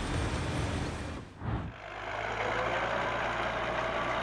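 Heavy machinery engine running. About a second and a half in, the sound breaks off and gives way to another machine, which has a steady low hum and a whine that slowly rises in pitch.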